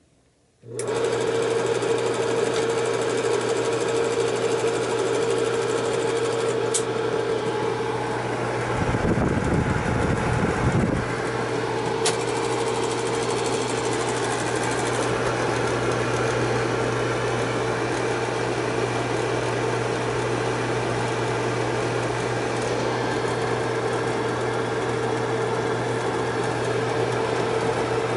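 Bell & Howell Super 8 autoload film projector switched on about a second in, its motor running with a steady hum and whir.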